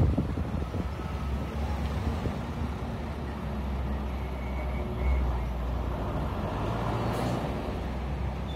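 Steady low rumble of a vehicle's engine and tyres driving along a road, swelling briefly about five seconds in.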